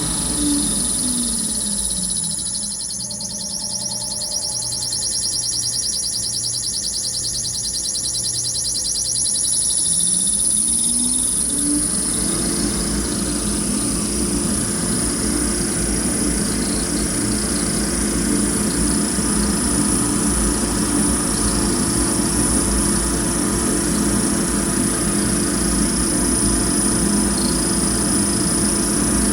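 Fan motor winding down, its whine falling in pitch and dying away over the first two seconds. About ten seconds in it spins back up with a rising whine and then runs steadily, over a constant high-pitched whine and low hum. This is the fan the owner reports as making an abnormal noise.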